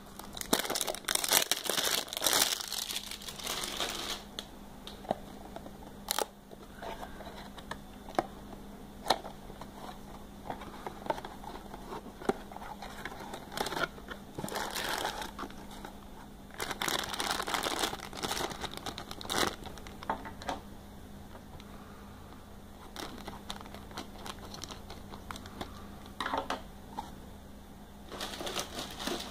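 A cardboard Funko Mystery Mini blind box is handled and opened, and the black foil bag inside is crinkled and torn open. The sound comes as bursts of crinkling and tearing with small clicks, and quieter pauses between.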